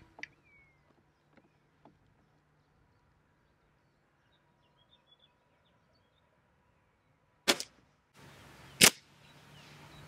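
BSA Lightning SE break-barrel spring-piston air rifle fired once, a sharp crack about seven and a half seconds in. A second, louder sharp crack follows just over a second later.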